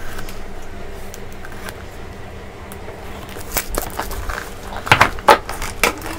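Cardboard smartphone box being handled and opened: a soft sliding rustle as the inner box comes out of its sleeve, then a few sharp knocks and taps as it is set down on the table and handled, the loudest about five seconds in.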